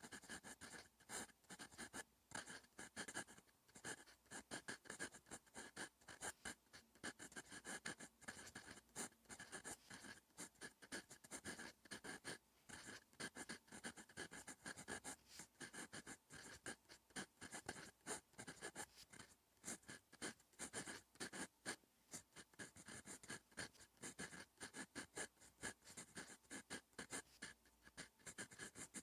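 Fountain pen nib scratching faintly across lined paper while writing Korean handwriting, a quick, continuous run of short pen strokes.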